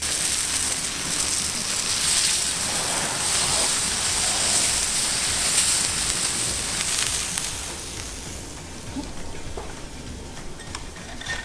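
Stuffed squid sizzling in oil and butter on the hot steel plate of a fire-ring grill. A steady hiss starts abruptly and fades after about seven seconds, with a few light clicks near the end.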